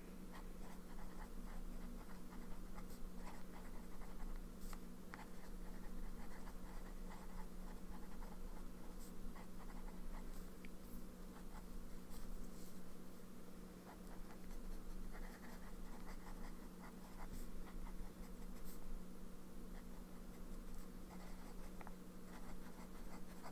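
Sailor Pro Gear Slim fountain pen's medium nib writing on planner paper: faint scratching as it moves, with small ticks as the nib lifts and touches down between strokes. A steady low hum runs underneath.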